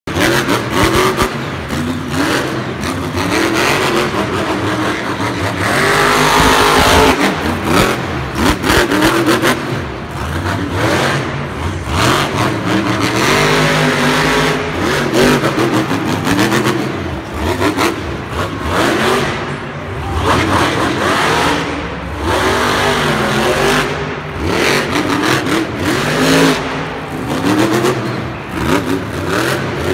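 Grave Digger monster truck's supercharged V8 engine revving hard, its pitch rising and falling again and again as the throttle is opened and closed during jumps and wheelies, loudest about six to seven seconds in.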